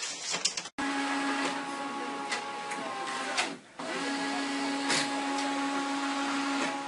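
Multifunction printer running: a steady mechanical whir with a held hum, which stops for a moment about halfway and then starts again. A few sharp clicks come before it in the first second.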